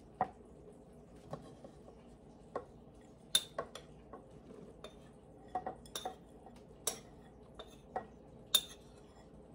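Utensil clinking and scraping against a ceramic mixing bowl as dry flour mixture is tipped into a stainless steel stand-mixer bowl: a dozen or so sharp clinks and taps at irregular intervals.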